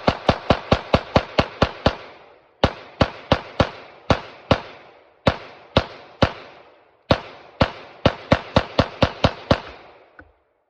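Glock 19X 9mm pistol firing 115-grain rounds in rapid semi-automatic strings: about thirty shots in four quick bursts with short pauses between them, stopping shortly before the end. It is a live-fire function test of the pistol's freshly polished feed ramp.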